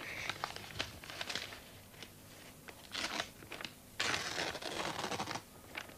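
Magazine paper rustling and tearing in short bursts, the longest starting about four seconds in.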